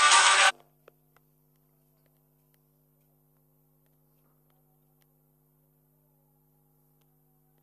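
A loud half-second snatch of an Instagram story's audio, cut off abruptly as the story is closed. After it comes only a faint steady electrical hum.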